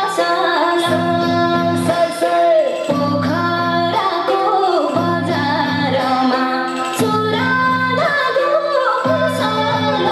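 A song with a woman singing a gliding melody over a low accompaniment figure that repeats about every two seconds.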